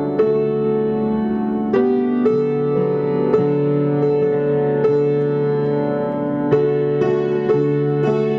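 Piano keyboard playing slow, held chords, a new chord struck about every second or so.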